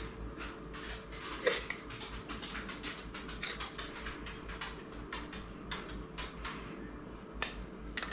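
A spoon scooping granulated sugar from a metal canister and sprinkling it over fruit in a cast-iron skillet: light scrapes and ticks, with a sharper tick about a second and a half in and a sharp click near the end.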